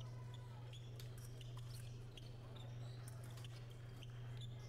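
Faint sound of an épée bout on the fencing strip: scattered light taps and squeaks of the fencers' footwork over a steady low hum.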